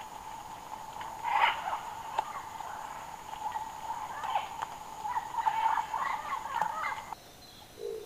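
Rainforest chorus: a steady insect drone with many short chirping calls over it and a few clicks. It cuts off abruptly about seven seconds in, leaving a quieter background with a faint high tone.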